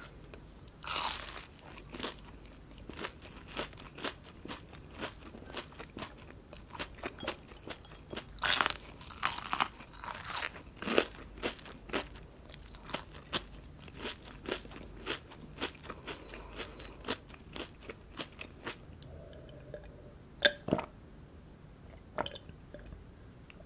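Close-miked crunching and chewing of a breaded fried shrimp with a crisp crumb coating. The loudest crunchy bites come about a second in and again around eight to ten seconds in, followed by steadier chewing crunches that thin out near the end.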